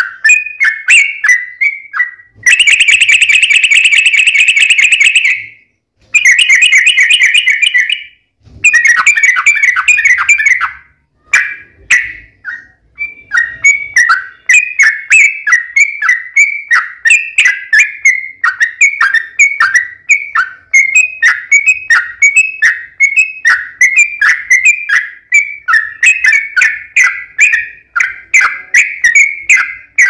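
Yellow-vented bulbul singing a long, loud song. A few seconds in come three rapid trills of a few seconds each, and after that a fast, steady run of short slurred chattering notes.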